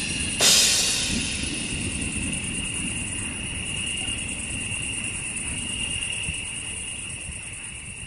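A single Saluda Earthworks dry cymbal crash about half a second in, ringing and slowly dying away, over a steady high-pitched cricket chorus.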